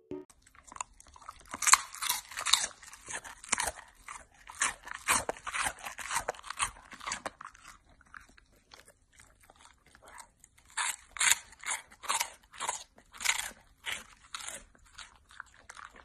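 A Siberian husky chewing something crunchy, with loud, irregular crunches at roughly two or three a second. The crunching thins out for a couple of seconds about halfway through, then picks up again.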